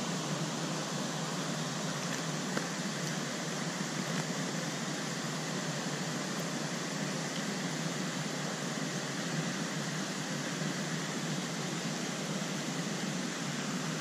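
Steady rush of water from a small stream with a waterfall: an even hiss that does not change.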